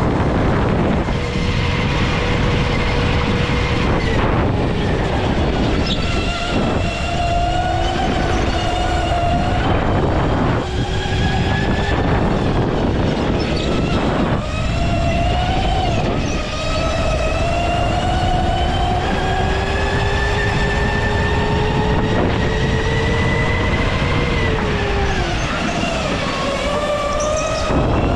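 Go-kart's motor whining as it drives a lap, the pitch climbing as it gathers speed and dropping sharply several times, with one long climb through the middle before falling away near the end. Wind buffets the microphone underneath.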